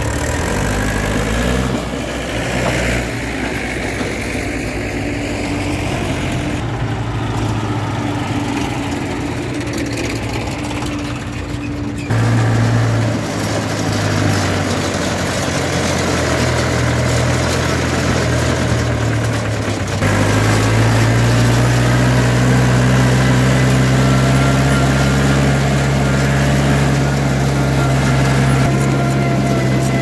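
Mahindra DI diesel tractor engine running steadily as the tractor drives, heard from the driver's seat. The engine note changes abruptly about 12 and 20 seconds in, and is loudest and steadiest in the last third.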